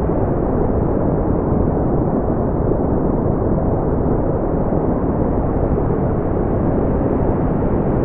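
Steady brown noise: a continuous, even low rumbling hiss, strongest in the bass and fading toward the treble, with no change or events.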